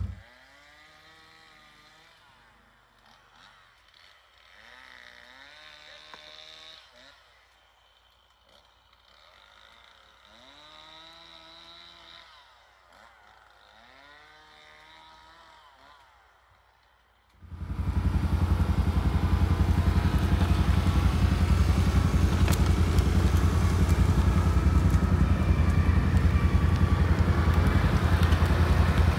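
After a quiet stretch with a few faint gliding calls, a Can-Am 6x6 ATV's engine comes in abruptly about two-thirds of the way through and runs steadily and loudly.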